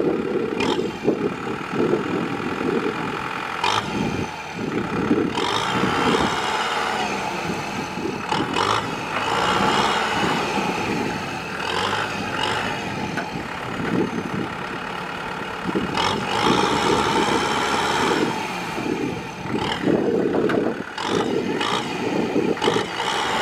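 Kubota M6040SU tractor's diesel engine working hard under load while the tractor is bogged in the deep mud and water of a flooded paddy; its loudness rises and falls, with several short knocks.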